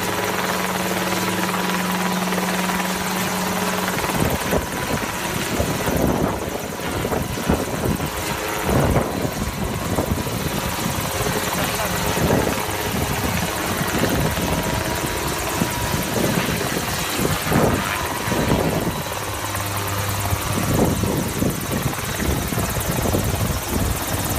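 Small helicopter hovering low over water: its engine and rotor give a steady drone, which turns more uneven and choppy about four seconds in.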